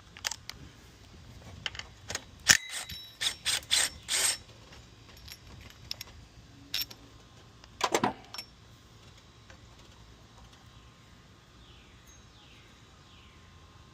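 Hand tools working on an engine's pulley and belt: a run of sharp metallic clicks and knocks, another short cluster about eight seconds in, then quiet.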